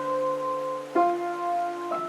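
Slow, quiet music: held chords that change about a second in and again near the end, over a sustained low note.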